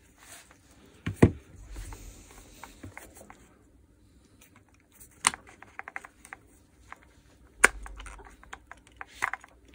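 Plastic housing parts of a power-tool polisher being handled and pulled apart: scattered small clicks and rattles, with sharper clacks about a second in, about five seconds in and near eight seconds in.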